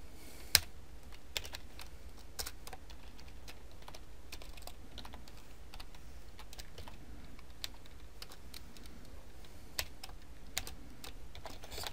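Computer keyboard typing: irregular key clicks, one louder keystroke about half a second in, over a low steady hum.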